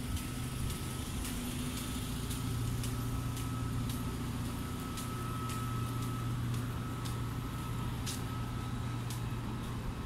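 Steady low mechanical hum with a faint high whine running under it, the kind of drone an idling engine or street-side machinery makes, with short footstep ticks at a walking pace.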